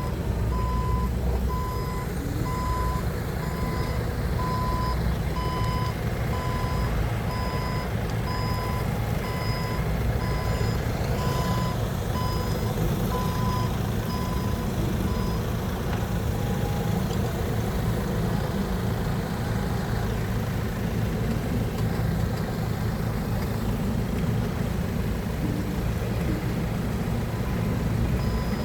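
Forklift engine running steadily while its reversing alarm beeps about once a second; the beeping stops about halfway through.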